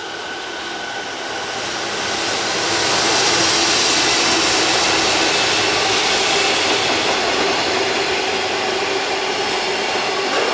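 Container freight train hauled by a JR Freight EF210 electric locomotive passing at speed. The running noise of wheels on rail builds over the first three seconds as the locomotive comes by, then holds steady as the loaded container wagons roll past.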